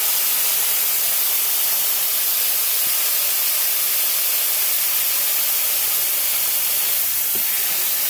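Garden hose spray nozzle jetting water into a plastic tub that is already partly full, filling a hydroponic reservoir: a loud, steady hiss of spray splashing into water.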